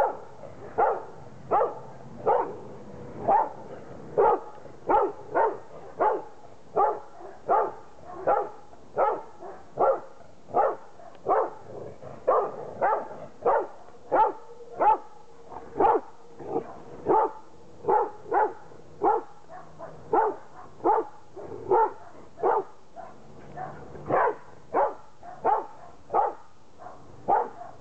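Black Labrador retriever barking at a life-size cardboard cutout of a man, a steady run of short sharp barks, roughly three every two seconds.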